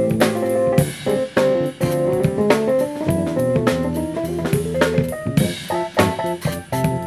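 Live band playing: a drum kit keeps up a busy pattern of drum and cymbal hits under held chords and moving notes from a Roland Juno keyboard.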